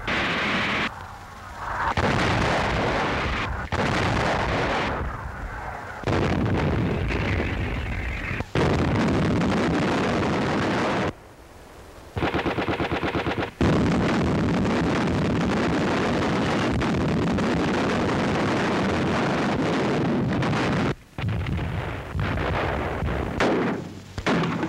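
Artillery firing: repeated heavy gun reports, each trailing into a long rumble, with a short burst of rapid automatic fire about halfway through.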